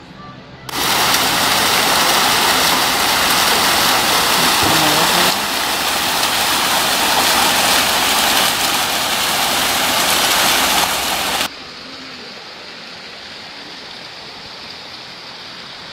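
Loud rushing water of a small waterfall cascading over rocks. It starts suddenly about a second in and cuts off sharply a few seconds before the end, leaving a much fainter steady hiss.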